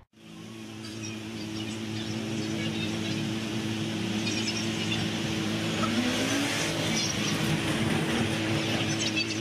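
Motor vehicle engines and street traffic running steadily, fading in from silence at the start; about midway one engine's pitch rises briefly.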